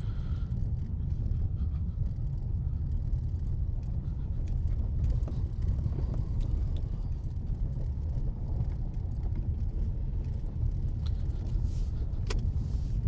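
Steady low rumble of a Hyundai car driving over an icy, snow-covered road, heard from inside the cabin. A few faint sharp knocks come near the end. The driver takes the car's strange sounds for the tyres running through ice.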